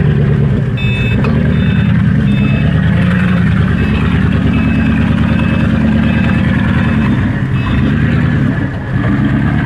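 Off-road vehicle engine running steadily at a low to mid pitch, with short electronic beeps repeating in several groups over it.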